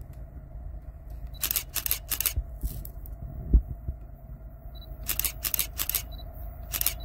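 Handling noise on the recording phone or camera: scattered clicks and rustles in two clusters, with a single low thump midway, over a steady low wind rumble and a faint hum.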